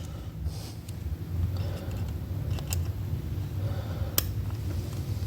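Hand-tool work on motorcycle parts: scattered small metallic clicks and taps, sharpest about four seconds in, over a steady low hum.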